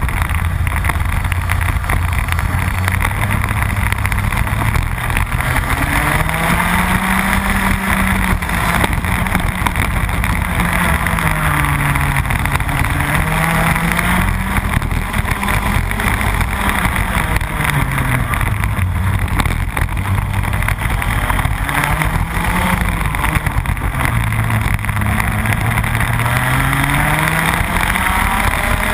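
Rotax Max 125cc two-stroke kart engine heard onboard at racing speed, its pitch climbing as it accelerates and dropping as it slows, about five times over.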